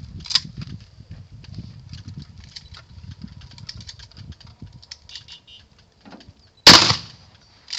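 Shotgun fired once about seven seconds in, a loud bang with a ringing tail, followed about a second later by a shorter, quieter bang. Before that, wind rumble on the microphone with light clicks and a short crack just after the start.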